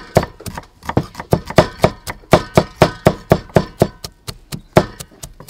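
Steel cleaver mincing garlic cloves on a wooden chopping board: rapid, even chops, about four a second, knocking into the wood.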